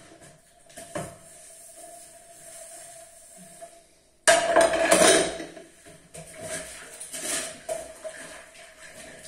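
A frying pan set down onto a stack of washed dishes: a loud clatter of crockery and metal about four seconds in, followed by a few smaller knocks as the dishes settle.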